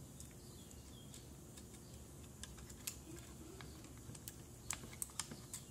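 Faint small plastic clicks and taps as stepper motor cable connectors are handled and pushed onto the header pins of a robot's circuit board. The clicks are scattered and come more often and louder in the second half.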